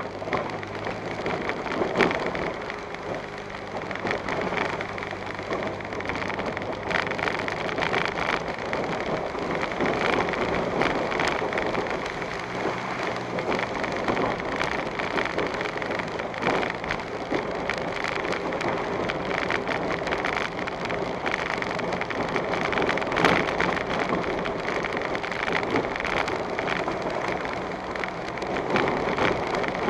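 Car driving slowly over a rough, rutted dirt road, heard from inside the cabin: a steady low engine under tyre noise on dirt and gravel, with frequent small rattles and knocks from the bumps.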